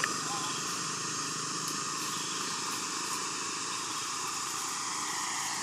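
Steady outdoor background hiss, with a sharp click at the start and a couple of faint short chirps.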